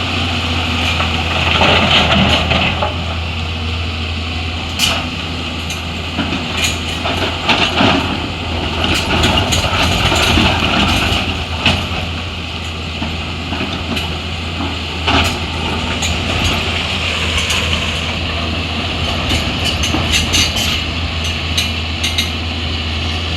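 Heavy diesel machinery running steadily, with scattered clanks and knocks of metal.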